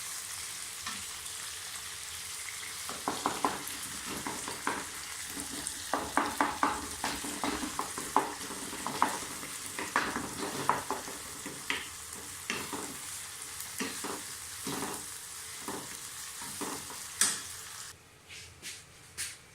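Chopped tomato sizzling in hot oil with fried onion and chili in a cooking pan, with a spoon scraping and knocking against the pan as it is stirred from about three seconds in. The sizzling falls away near the end.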